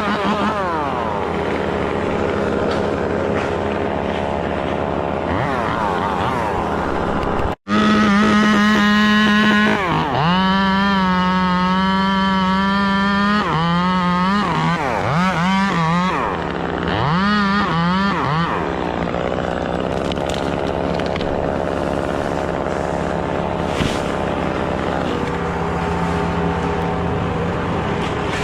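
Chainsaw engine running hard, its pitch falling and rising again and again as the throttle is eased off and opened. It is held at high, steady revs for a few seconds partway through. The sound cuts out for an instant about eight seconds in.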